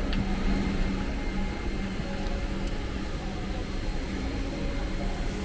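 Steady airliner cabin ambience while boarding: the rush of the ventilation air with a low steady hum.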